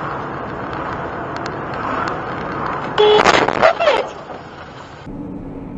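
Car driving heard through a dashcam: steady road and engine noise. About three seconds in comes a loud outburst lasting about a second, with a short steady tone and pitches that bend, and the sound then cuts abruptly to a quieter recording with a steady low hum.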